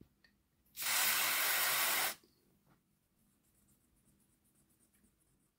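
WD-40 Specialist Contact Cleaner aerosol sprayed through its straw in one steady hiss lasting about a second and a half, onto the dirty armature of a model locomotive motor to clean its commutator.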